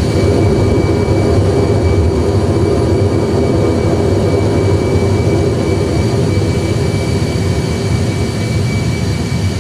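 Simulated Airbus A320 cockpit sound of both jet engines at takeoff (TOGA) thrust during the initial climb: a steady rumble with a steady high whine over it.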